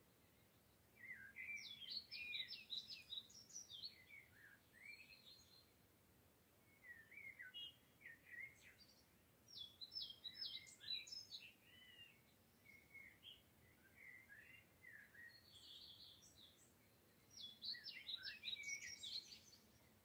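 A songbird singing at dusk: fast, varied whistled and warbled phrases in four bursts of a few seconds each, with short pauses between.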